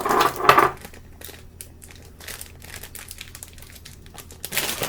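A plastic bag of shredded cheese crinkling as it is opened and handled. There is a loud rustle at the start and another near the end, with faint crackles of the plastic in between.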